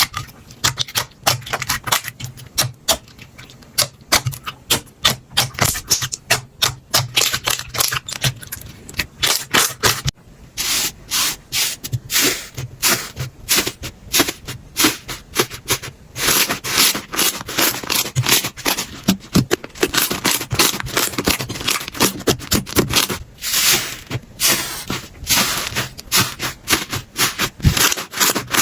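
Hands squeezing and poking slime, giving rapid sticky clicks and crackles; the texture changes about ten seconds in.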